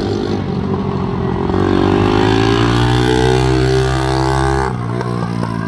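Racing three-wheeler ATC's engine passing close, its note climbing in pitch for about three seconds as it accelerates, then cutting off abruptly near the end. Other engines run steadily underneath.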